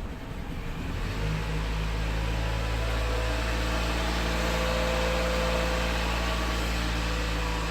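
Engine started through a home-made push-button ignition switch: the starter cranks for about a second, then the engine catches and idles steadily.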